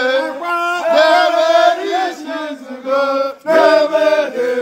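A group of men chanting and singing together in loud, held phrases, with brief breaks between them.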